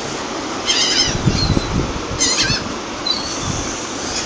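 Gulls calling: three short, high, wavering calls, the last one fainter, over a steady rushing noise.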